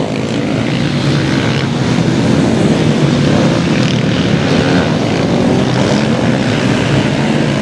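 Supermoto racing motorcycles running through a corner, their engines making a continuous drone that wavers slightly in pitch.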